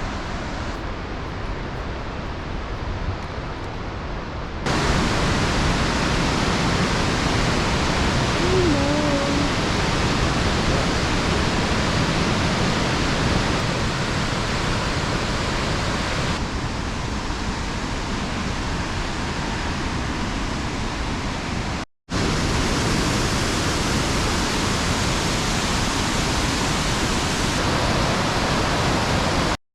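Upper Mesa Falls, a large waterfall, making a steady rush of falling water that gets louder about four and a half seconds in, with a short dropout partway through.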